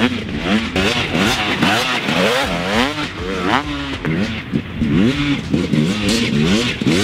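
Dirt bike engine ridden hard through a whoops section, its revs rising and falling about twice a second as the bike goes over the bumps.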